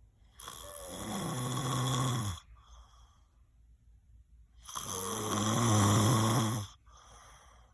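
A person snoring: two long snores about four seconds apart, each growing louder over about two seconds, each followed by a softer breath out.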